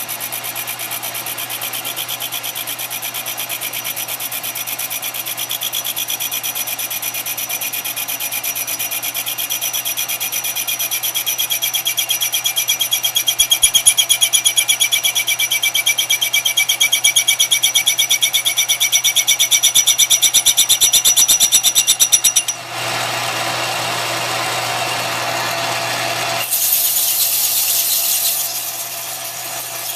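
Metal lathe running in reverse while a carbide tool cuts the back of a live steam locomotive wheel's flange: a steady run with a high ringing singing tone that grows louder. About three-quarters of the way in the ringing stops and a rough rubbing hiss takes over, as a hand-held rag is pressed against the spinning wheel.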